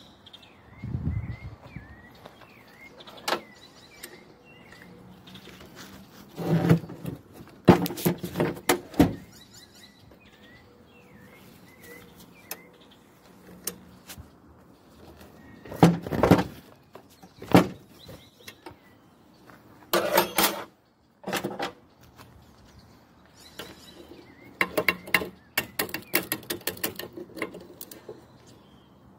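Hand tools working on an electric jet pump: scattered metal clinks and knocks, with several bursts of rapid clicking from a ratchet wrench turning fasteners on the pump's motor end.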